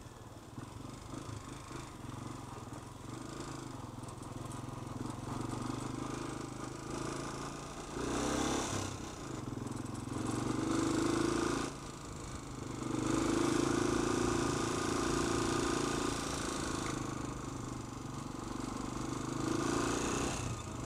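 Honda XLR 125's single-cylinder four-stroke engine running as the bike is ridden, picking up revs about eight seconds in and several more times after, easing off in between.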